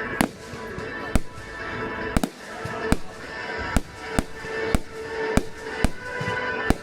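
Fireworks going off in a display: about ten sharp bangs at uneven intervals, roughly one every half second to second. Music plays underneath.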